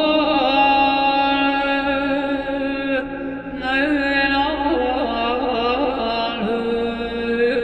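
Chant-like music with long held notes that glide in pitch, with a brief dip in loudness about three seconds in.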